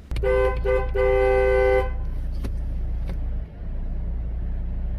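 Car horn honked with two short beeps and then one long beep, a two-tone horn sounding to announce arrival, over the steady low hum of the car's idling engine.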